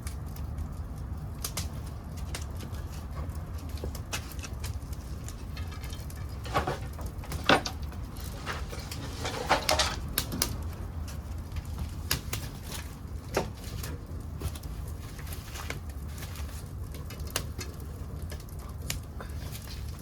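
Pieces of an old wooden futon chest burning in a homemade secondary-combustion wood gas stove: irregular sharp crackles and pops over a steady low rush of the fire, crackling thickest with one loud pop in the middle.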